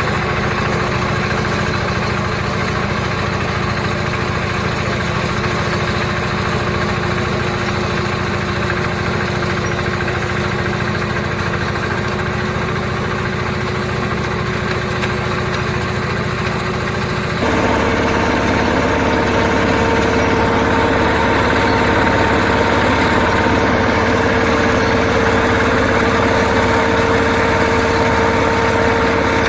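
Mini combine rice harvester running: a steady engine drone with a steady whine over it, which shifts suddenly to a louder, higher-pitched sound about two-thirds of the way through.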